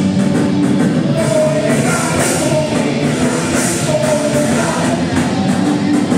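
Live punk band playing loud on stage, electric guitars and the rest of the band going full on, with sung vocals over them through the PA.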